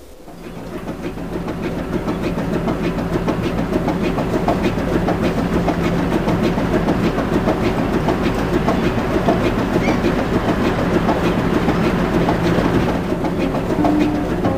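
A machine running with a fast, even clatter over a steady low hum, fading in over the first two seconds.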